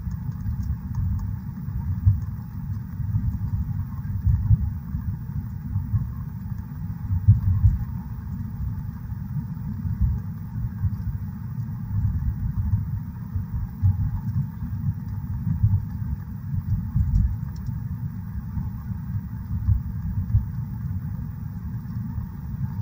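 Car cabin noise while driving: a steady low rumble of engine and road.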